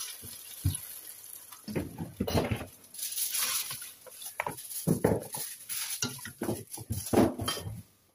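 Water pouring briefly into a stainless steel pot of chopped vegetables, then a plastic slotted spoon stirring them, with irregular knocks and scrapes against the pot.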